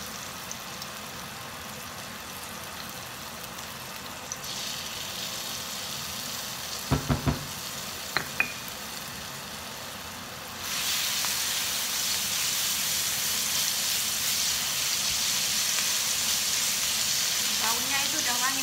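Ground rawon spice paste frying in hot oil in a wok, sizzling. A few sharp knocks come about seven seconds in, the sizzling gets clearly louder about eleven seconds in, and near the end a silicone spatula stirs and scrapes the paste through the oil.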